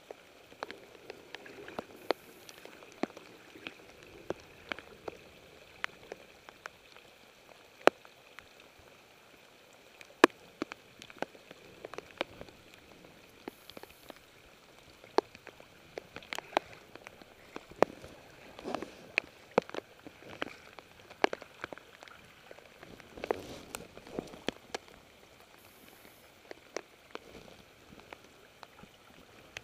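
Water drops falling after rain, ticking irregularly onto wet leaves and wood, a few sharp drops a second.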